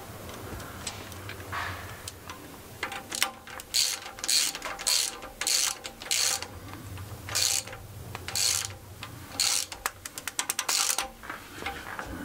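Hand ratchet wrench clicking through a series of short strokes on a big-block engine's rocker shaft, ending in a quick run of fast clicks.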